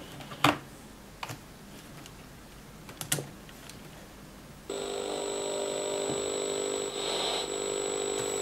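A few small clicks from handling the Sony Watchman pocket TV and pulling out its telescopic antenna. About halfway through, the set switches on and its tiny speaker gives a sudden, steady buzzing noise instead of programme sound. The US-bought set's sound carrier does not match the local TV standard, so it only produces noise.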